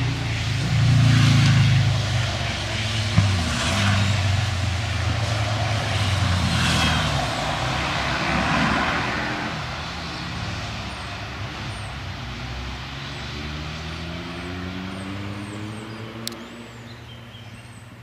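A motor vehicle's engine running past, loud in the first few seconds and then fading away as its pitch slowly rises. A few faint bird chirps come near the end.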